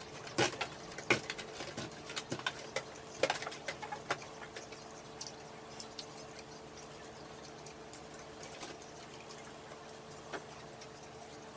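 Close-up eating sounds from someone eating Chicken McNuggets: a quick run of sharp clicks and smacks in the first few seconds, then only scattered clicks. A faint steady hum runs underneath.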